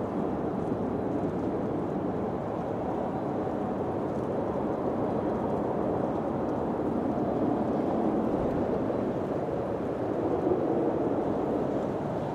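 Wind blowing in a steady rushing noise, swelling a little near the end.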